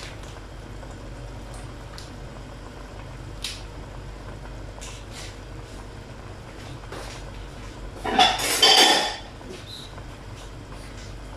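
Kitchen dishes and utensils clattering for about a second, roughly eight seconds in, with a few faint clicks before it, over a low steady hum.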